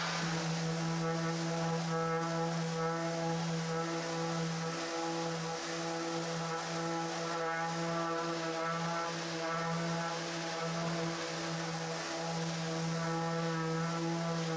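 Festool random orbital sander running steadily on an ash tabletop, with a 120-grit mesh abrasive, to strip the old waxed finish. The motor gives a steady pitched hum with a hiss over it, wavering a little as the sander is pushed across the wood.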